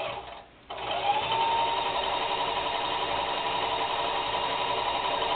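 Bailey Home Quilter longarm quilting machine starting up under a second in, its whine rising briefly and then running steady as it stitches a test strip to check the thread tension.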